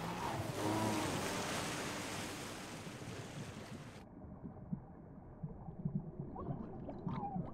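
A car sinking underwater in a drama soundtrack: a rushing wash of water noise that cuts off abruptly about four seconds in to a muffled low underwater rumble.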